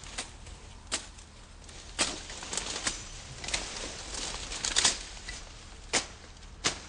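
A run of about a dozen irregular sharp cracks and crunches, with short stretches of rustling between some of them; the loudest come about two seconds in, near five seconds and near six seconds.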